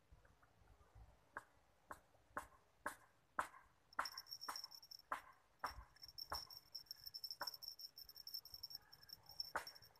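A high, steady insect trill that starts about four seconds in, over a run of faint sharp clicks about two a second.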